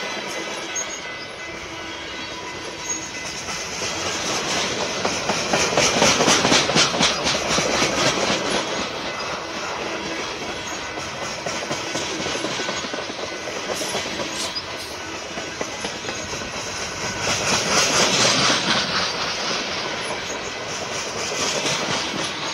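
Freight cars of a BNSF mixed freight train rolling past close by, their wheels clattering steadily over the rail joints. The clatter swells louder twice, about six seconds in and again near eighteen seconds.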